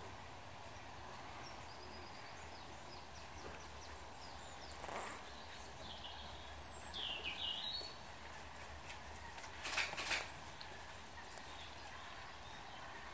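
Wild birds calling over steady outdoor background noise: scattered short high chirps, a louder dipping call about seven seconds in, and a brief loud rasping sound about ten seconds in.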